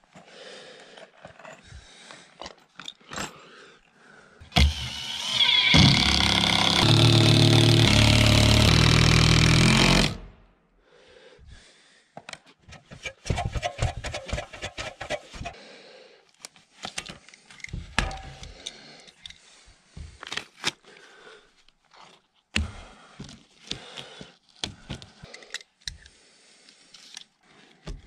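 Handling noise of hands-on work on plywood sheathing: scattered knocks, scrapes and rustles. About five seconds in, a loud pitched whir runs for about five seconds and cuts off suddenly.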